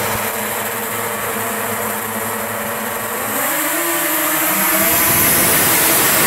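A pack of racing snowmobiles' two-stroke engines running at speed on an ice oval, several engines at once. About three and a half seconds in, their pitch climbs and they grow louder as the pack accelerates past.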